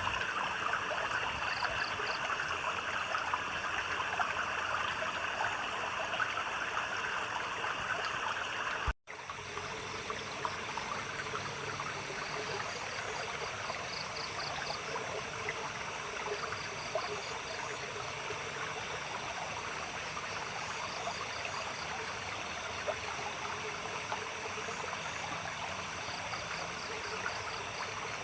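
Stream water trickling and splashing steadily, with insects chirping in short pulsed trills every few seconds. The sound cuts out for an instant about nine seconds in and then carries on.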